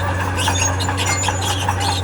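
Steel crawler tracks of a tracked machine squealing and squeaking in quick, irregular bursts as it moves, over the steady low drone of its diesel engine.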